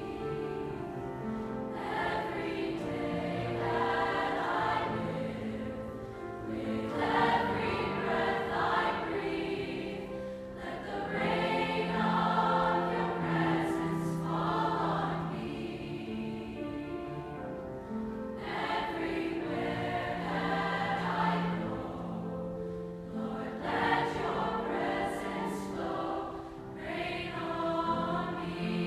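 Mixed youth choir singing a slow worship song in phrases of held notes, with short breaks between phrases.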